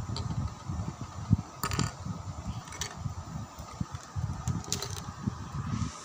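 Plastic Rubik's cube pieces being handled and fitted back together, with a few sharp clicks as pieces snap into place over irregular low rumbling and bumping from the phone being held close. A faint steady hum runs underneath.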